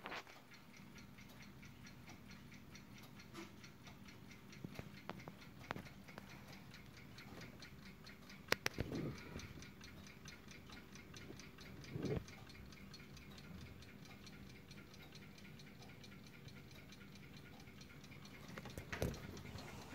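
Brass-cased ship's clock ticking quickly and evenly, faint, with one sharper click about eight and a half seconds in.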